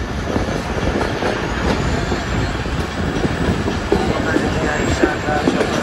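Passenger train coach running at speed, heard from an open doorway: steady rumble and rushing noise with the clickety-clack of wheels over rail joints.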